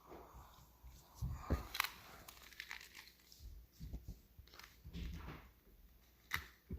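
A plastic puzzle cube being turned and handled: irregular light clicks and rustles as its layers are twisted.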